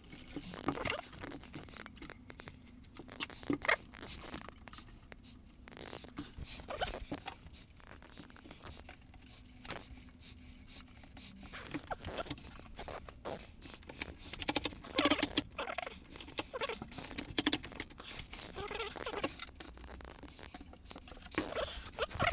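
Poster board being handled and fitted around a mitre saw: irregular rustling, scraping and tapping, busier about two-thirds of the way in and again near the end.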